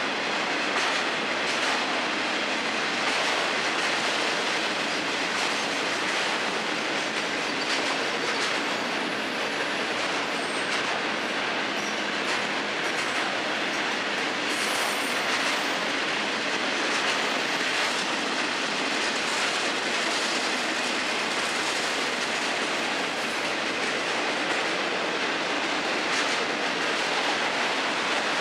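Florida East Coast freight train's autorack cars rolling past: a steady noise of steel wheels on the rails, with faint clicks as the wheels cross rail joints.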